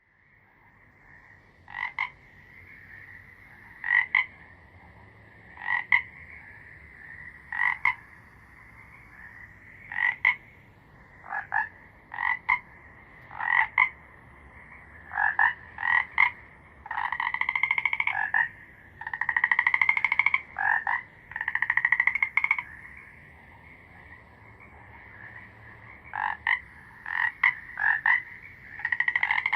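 Frogs croaking: short croaks every couple of seconds, often in pairs or threes, with longer pulsing calls a second or two long past the middle. A steady high drone runs underneath.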